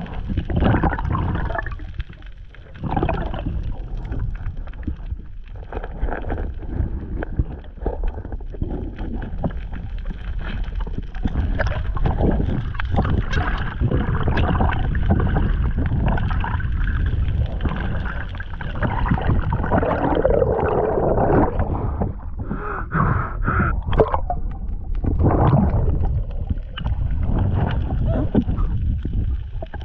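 Muffled sloshing and gurgling water on an action camera's microphone in the sea while snorkelling, with a steady low rush of noise broken by many short splashes.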